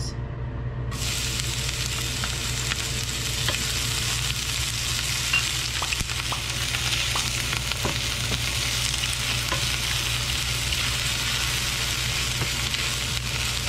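Chopped onion sizzling in hot cooking oil in a stainless steel frying pan while being stirred with a wooden spatula. The sizzle starts suddenly about a second in and then holds steady, with a few faint scrapes of the spatula.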